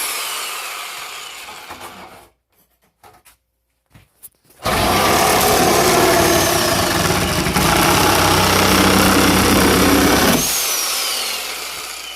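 A power tool's motor running. A first burst fades out over about two seconds, then after a short pause a longer run of about six seconds dies away gradually at the end.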